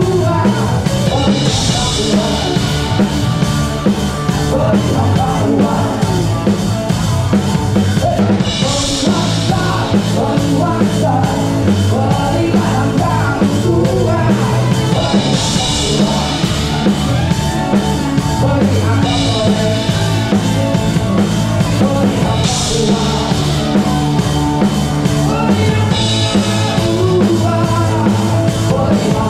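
Live band playing a song, with the drum kit loud and close. Bright cymbal washes return every several seconds.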